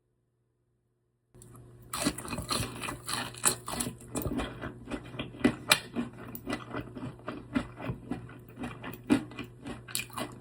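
Close-up chewing of crispy fried chicken tenders: a dense, irregular run of crunches and wet clicks that starts after about a second and a half of silence.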